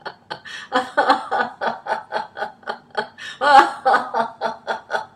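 A woman laughing heartily in quick, rhythmic bursts of about four to five a second, with a louder peak about three and a half seconds in. It is laughter-yoga laughter, done on purpose as an exercise.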